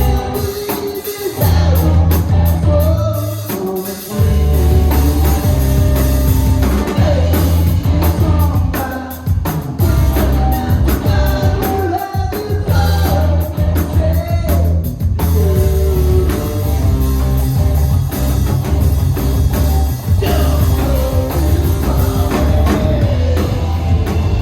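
Live rock band playing with a singer, drums and guitar over heavy, sustained low bass notes.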